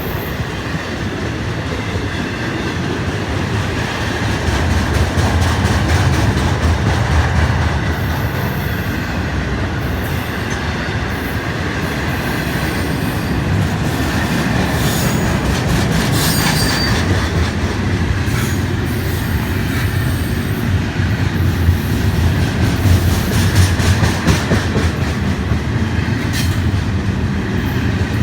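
A freight train's cars rolling past steadily: a continuous rumble with a regular clickety-clack of wheels over rail joints and brief high wheel-on-rail squeals.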